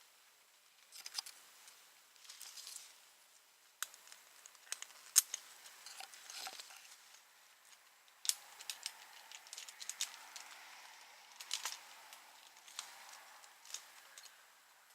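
Climbing gear handled: scattered light metallic clicks and clinks with short rustles, a few sharper ticks standing out, the loudest about five seconds in.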